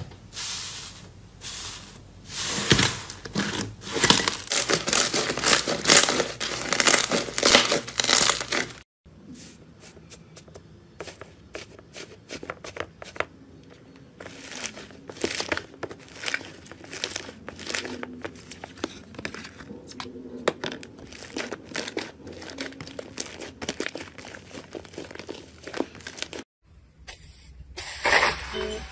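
Slime being handled, squeezed and pulled, giving dense crackling, crinkling and tearing sounds. Louder for the first nine seconds, then softer, finer crackles after a cut.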